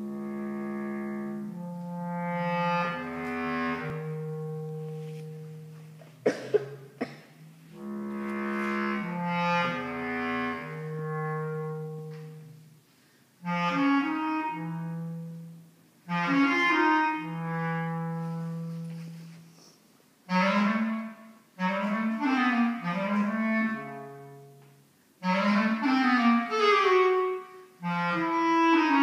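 Bass clarinet playing: long held low notes that swell and fade at first, then shorter, separate phrases jumping between low and middle notes. A few sharp clicks about six seconds in.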